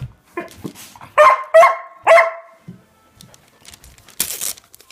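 Dog barking three times, high-pitched, about half a second apart, then a brief rustle of paper near the end as the package is worked at.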